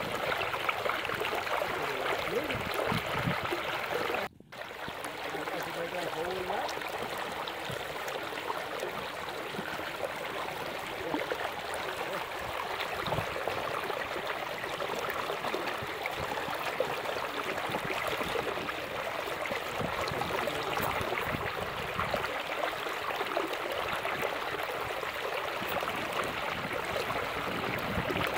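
Steady rushing noise, like running water, broken by a momentary dropout about four seconds in.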